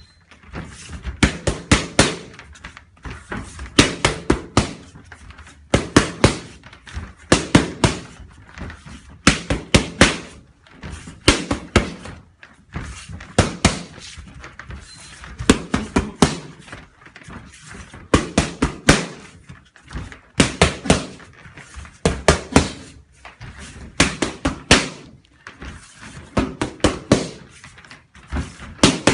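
Punches landing on boxing pads in fast combinations of three to six strikes, a new combination every second or two.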